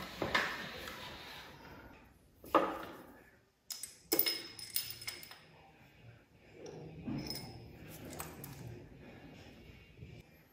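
Steel tools clinking and knocking on a workbench: a bearing separator, pin punch and hammer handled while a saw motor's armature bearing is being removed. A handful of sharp metallic knocks with a brief ring come between about two and a half and five seconds in, with quieter handling and rattling after.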